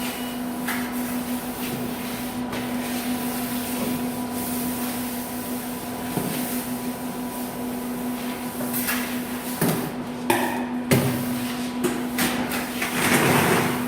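Steel plastering trowel scraping and sliding over cement-sand mortar, with a few sharp knocks about ten seconds in and a longer scrape near the end. A steady hum runs underneath.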